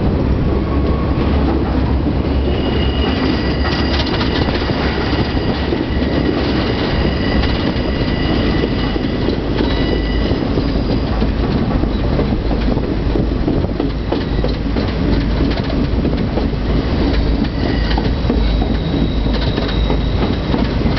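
A train running on rails with a steady low rumble. Its steel wheels squeal in high tones for several seconds, from about two seconds in, and again near the end.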